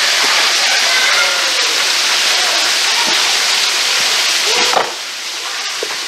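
Small waterfall splashing as it falls in thin streams and drips down a sandstone rock face: a steady, even rush of water that drops suddenly to a slightly quieter level about five seconds in.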